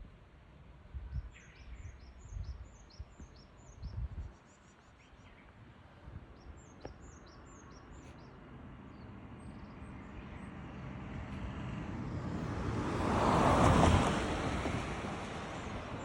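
Small birds chirping in quick runs of short high notes, with low rumbles of wind on the microphone in the first few seconds. A broad rushing noise then builds over several seconds, peaks loudest about 13 seconds in, and eases off.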